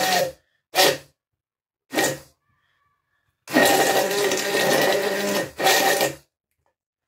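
Immersion blender switched on and off in the glass jar in short pulses, then held on for about two seconds, with a steady motor whine, while it emulsifies oil, egg and mustard into mayonnaise. One more short pulse follows, and it stops just after six seconds in.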